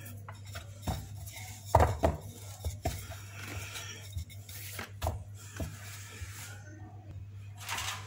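Wooden rolling pin working dough on a wooden pastry board: irregular knocks and taps as the pin and hands hit the board, with soft rubbing as the dough is rolled and folded.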